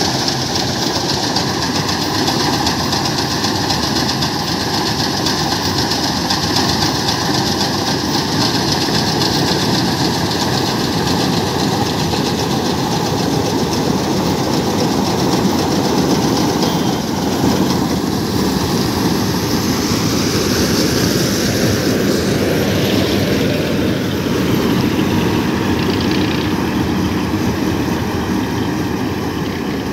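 Panesar combine harvester running steadily close by while cutting paddy, its engine and threshing machinery making a continuous loud mechanical din.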